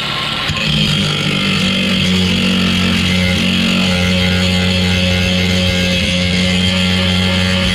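Angle grinder with a grinding wheel grinding an old weld bead off a steel wood-stove plate, its motor running steadily under load, with a hissing grind over the hum. The sound settles to an even level about half a second in as the wheel bites.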